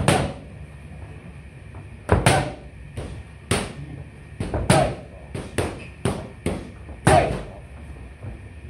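Boxing gloves smacking into a trainer's punch mitts in quick combinations: about a dozen sharp hits, bunched in twos and threes with short pauses between.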